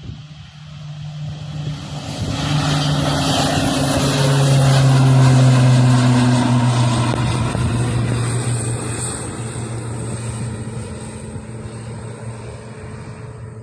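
Turboprop airplane flying past. Its propeller drone grows louder to a peak about five seconds in, drops in pitch as it passes, then slowly fades.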